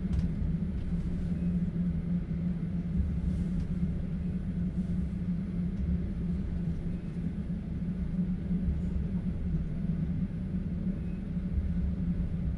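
Steady low rumble of a moving passenger train heard from inside a sleeper carriage, the level wavering slightly, with a few faint clicks.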